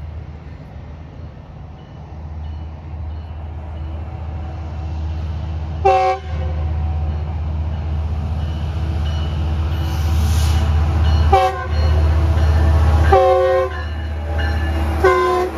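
Metrolink diesel locomotive approaching with its engine rumble growing louder, sounding its multi-chime horn in four brief blasts: one about six seconds in, then three more in the last five seconds.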